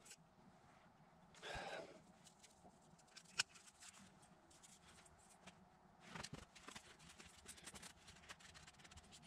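Faint workbench handling noises: a brief rustle, a single sharp click about three and a half seconds in, then a run of small clicks and rustles near the end as speaker parts are handled and wiped with a paper towel.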